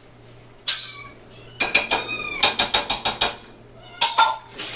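Dishes and a utensil clinking and clattering in quick clusters as food is put out onto plates, with kittens meowing among the clatter.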